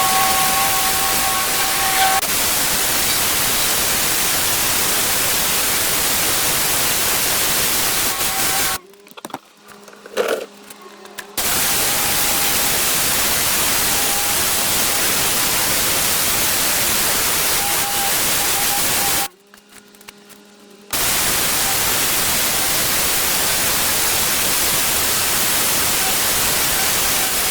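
Pressure washer jet spraying with a loud, steady hiss. It stops twice for a second or two, leaving only a low machine hum, before the spray starts again.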